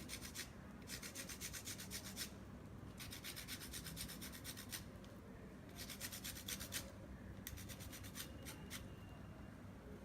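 Lemon peel being grated on a fine metal grater to zest it: faint, rapid rasping strokes in about four runs of a second or more each, with short pauses between.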